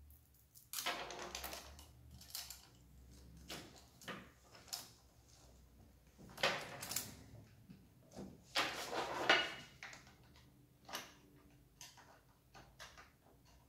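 Steel saw chain of a Riwall RECS 2040 electric chainsaw rattling and clinking as it is handled and fitted around its 16-inch bar, in a few short bursts of rattling, the loudest about a second in and around nine seconds, with scattered light clicks between.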